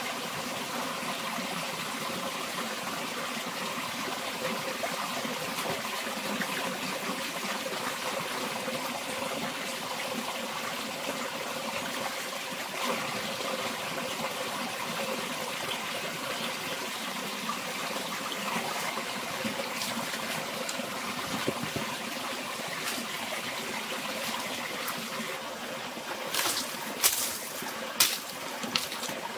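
Small forest stream trickling and splashing steadily. Near the end, a few sharp machete chops.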